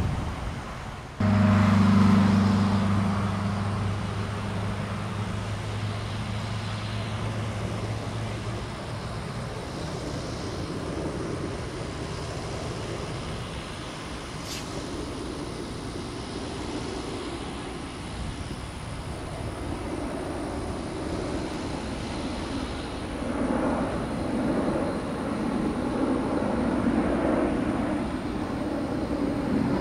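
Jet airliner engine noise. A steady low hum starts abruptly about a second in and fades over several seconds, then a rumble builds near the end.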